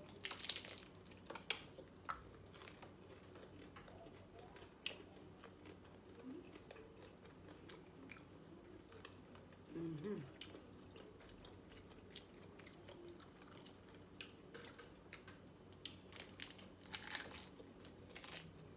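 Crunchy hard-shell corn tacos being bitten and chewed by two people: sharp, crisp crunches in clusters near the start and again near the end, with quieter chewing between.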